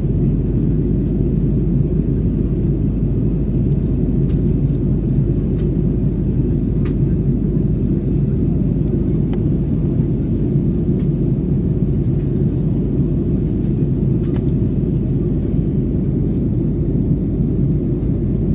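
Steady low rumble of a jet airliner's cabin noise heard from a window seat during descent, with a few faint ticks scattered through it.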